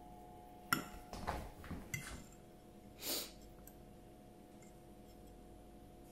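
Metal fork clinking and scraping on a ceramic plate: one sharp ringing clink about a second in, then a run of smaller taps and scrapes, and a short hiss near three seconds in. A faint steady hum runs underneath.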